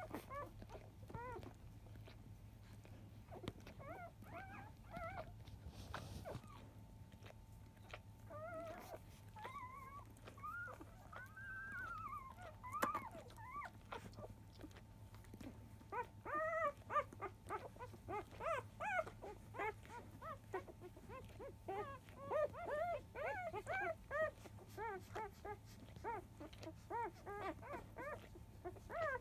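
Newborn Labrador Retriever puppies squeaking and whimpering while they nurse from their mother: short, high-pitched squeaks, scattered at first and coming thick and fast from about halfway through.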